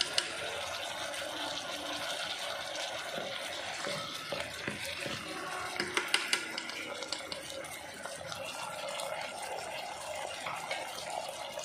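Wooden spatula stirring pieces of soy-braised pork through their sauce in the nonstick inner pot of a Primada electric pressure cooker: wet sloshing and scraping, with a few sharp knocks against the pot near the start and about six seconds in, over a steady hiss.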